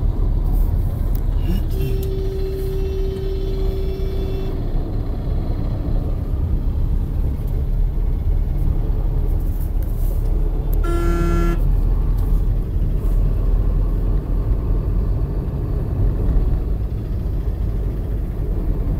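Steady road and engine rumble inside a moving car's cabin. A vehicle horn sounds one steady held note for about two and a half seconds near the start, and a short honk comes about eleven seconds in.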